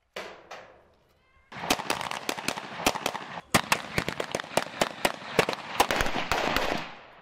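Rifle gunfire: one shot echoing just after the start, then from about a second and a half in, a rapid string of shots and bursts with echoes, dying away near the end.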